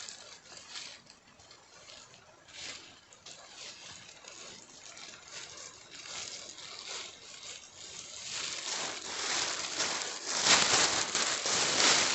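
Rustling and crinkling of a tent and ground sheet being handled and laid out, growing louder about eight seconds in.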